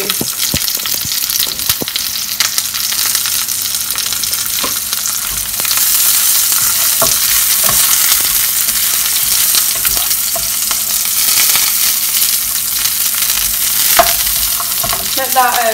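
Sliced mushrooms sizzling in a non-stick frying pan, stirred with a wooden spoon that scrapes and knocks against the pan now and then. The sizzle grows louder about a third of the way in.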